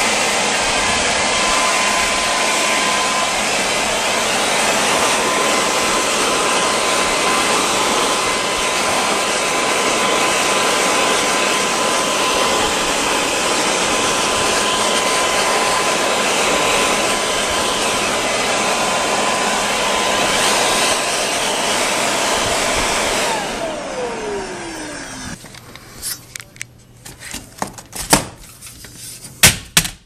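Electric blower running steadily with a thin motor whine, its air blast aimed at a pleated HVAC air filter to blow the dust out. About 23 seconds in it is switched off and the whine falls away as the motor spins down. A few sharp clicks and knocks follow near the end.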